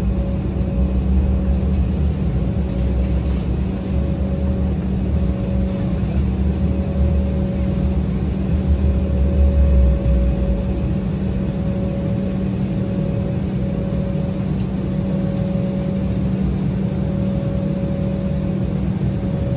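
Cabin noise inside an Embraer E190 during the taxi, its General Electric CF34-10E turbofans at idle: a steady hum with a higher whine above it over a low rumble. The rumble drops away about halfway through.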